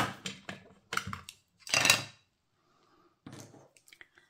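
Plastic ink pads and an ink brush being handled on a craft desk: a few short clicks and taps, the loudest about two seconds in.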